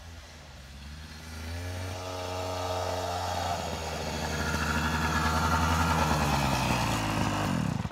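Small dirt bike's engine running as the bike rides up, getting louder as it approaches, its pitch easing down near the end as it slows to a stop.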